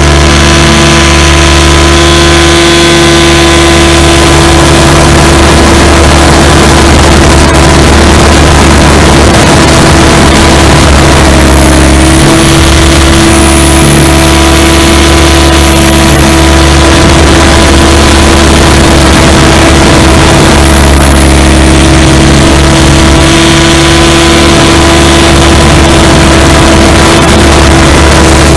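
SAB Goblin 500 electric RC helicopter in flight, heard through a camera mounted on it. A steady high whine from the brushless motor and drive sits over a heavy rumble of rotor wash and wind on the microphone, loud throughout.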